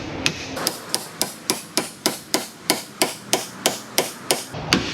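Hand hammer striking a pickle fork wedged into a stuck ball joint to force it apart from the knuckle: a quick, steady run of sharp hits, about three to four a second, speeding up slightly after the first second.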